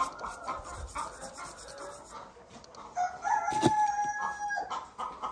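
A rooster crows once about three seconds in, a single long held call, with fainter clucking from chickens earlier. Light clicks and one sharp knock come through as well.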